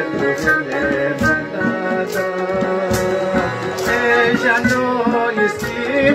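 Chitrali sitar, a long-necked plucked lute, playing an amplified folk melody over regular drum strokes, with a man's voice singing through a microphone.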